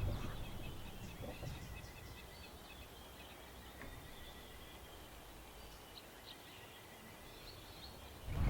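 Faint bush ambience: a run of rapid high-pitched chirps and a thin steady high tone from calling birds and insects. A low rumble dies away over the first two seconds.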